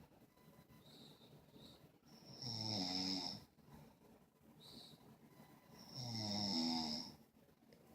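Slow, regular snoring: two long snores about three and a half seconds apart, each a low pitched rattle with a hiss over it, with short soft whistles and quiet breathing between them.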